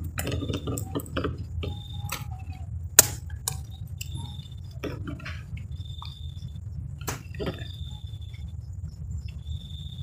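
Outdoor handling noise on a scope-mounted camera: a steady low rumble with scattered clicks and taps, one sharp click about three seconds in, and short high chirps from small animal calls repeating every second or two.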